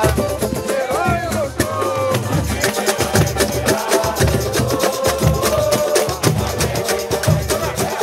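Live samba de roda: pandeiros, a tantã and other hand drums keep a steady, dense samba rhythm, with voices singing a melody over the percussion.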